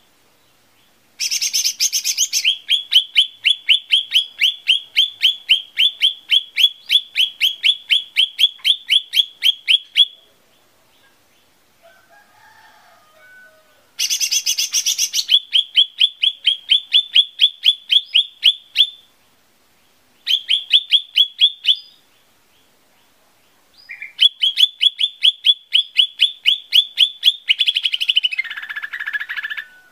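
Lesser green leafbird (cucak ijo mini) singing: four long runs of fast, evenly repeated high chirps, about five a second, with short pauses between runs.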